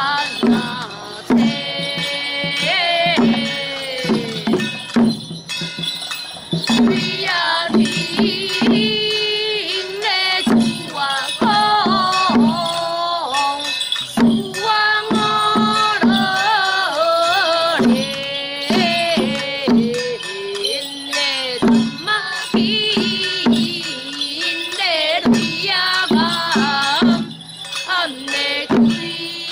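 Music: a melody that slides and bends in pitch over a steady low drum beat.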